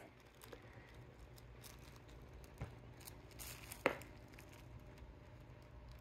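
Kitten clawing and biting at a plush toy inside a plastic toy bin: faint rustling and scratching, with a small click about two and a half seconds in and a sharper, louder click near four seconds.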